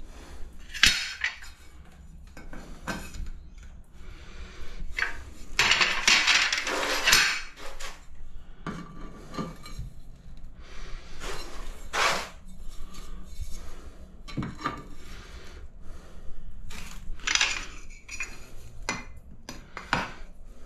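Glazed ceramic subway tiles clinking and tapping as they are pressed into adhesive on a wall and butted against each other, in irregular knocks with a longer scraping stretch about six seconds in.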